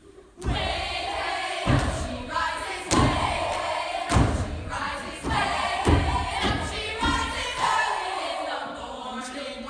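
A group of voices singing a song together, with a heavy thump about every second and a bit beneath the singing.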